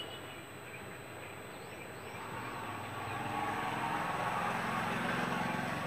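Hot air gun blowing steadily while it warms a phone's glued display edge to soften the adhesive; the air noise grows louder about three seconds in.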